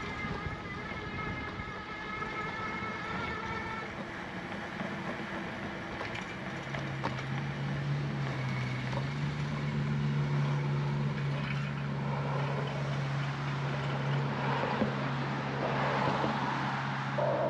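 A steady low motor-vehicle hum sets in about six seconds in and holds to the end, over a constant rushing noise from riding; a fading set of high tones sounds in the first few seconds.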